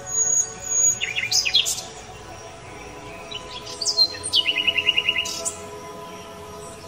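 Birds chirping: a few sharp high chirps about a second in, then a quick trill of about ten notes around the middle. Faint sustained tones underneath.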